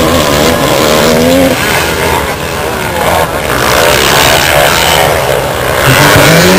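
Motocross dirt bike engines revving hard, several bikes at once, their pitch rising and falling with the throttle.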